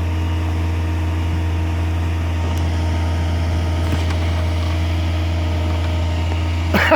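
Heavy construction machinery running steadily at a constant pitch, a deep even drone with no hammer blows.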